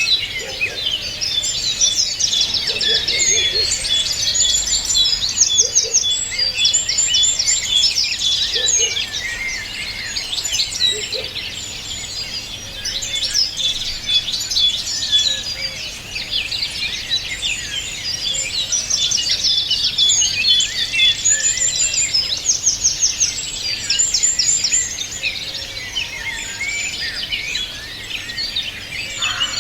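Many songbirds singing together in a dense chorus of high chirps, quick trills and twittering phrases, overlapping without pause.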